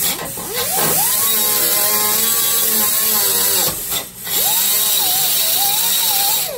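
Pneumatic cut-off tool with a small abrasive wheel cutting through a van's sheet-steel side wall. It spins up with a rising whine and runs for about three seconds, stops briefly, then spins up again and keeps cutting, its pitch wavering under load.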